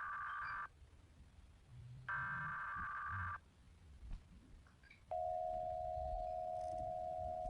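Emergency Alert System signal, pitched down: two screeching bursts of the data header, each a little over a second long, then about five seconds in the long steady attention tone begins.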